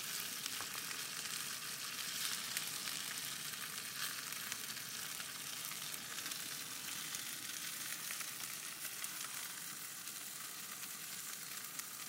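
Ahi tuna steaks searing in hot olive oil in a cast iron skillet: a steady sizzle with many fine crackles.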